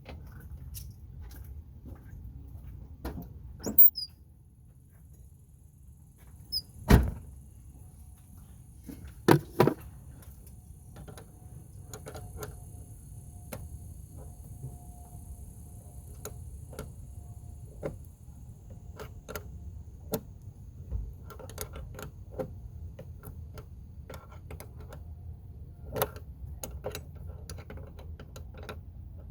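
Hand tools working on a truck battery terminal clamp: scattered light metallic clicks and taps, with a few louder knocks about 4, 7 and 10 seconds in, over a low steady hum.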